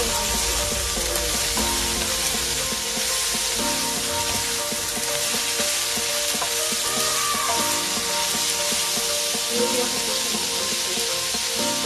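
Shredded cabbage, carrots and chicken sizzling in a frying pan as they are stirred and tossed with a wooden spatula, over steady background music.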